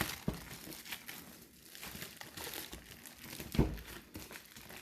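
Plastic packaging crinkling and rustling as it is pulled off a cardboard box by hand, with a single thump about three and a half seconds in.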